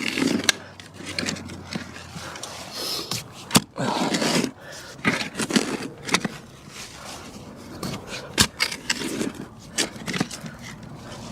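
Metal shovel digging a post hole in soft dirt: irregular scraping strokes, with a few sharp knocks.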